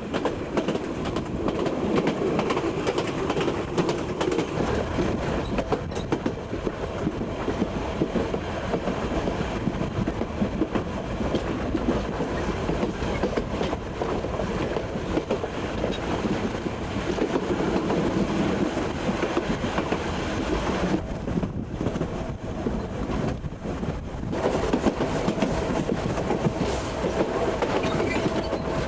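Passenger coaches of a steam-hauled excursion train running along the track, heard from aboard: a steady rumble and rattle with a stream of short wheel clicks.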